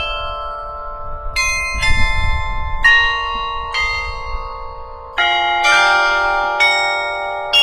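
Tuned bells of Riga City Hall playing a slow melody: about eight struck notes at changing pitches, each ringing on under the next.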